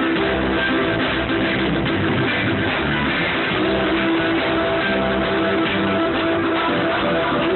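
Live reggae band playing, with guitar prominent.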